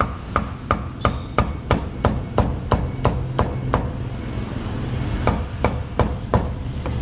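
Cleaver chopping roast pork on a cutting board in quick, even strokes, about three a second, then stopping for about a second and a half before four more strokes, over a steady low background rumble.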